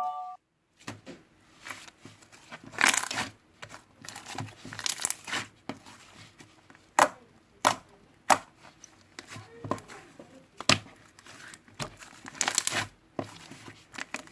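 Chocolate slime being squished and stretched by hand, giving irregular sharp sticky clicks and short crackling rustles with quiet gaps between them.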